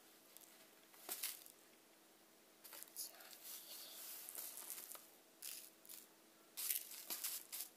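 Faint scattered clicks, scrapes and rustles of a plastic measuring scoop being handled in granular citric acid, over a faint steady hum.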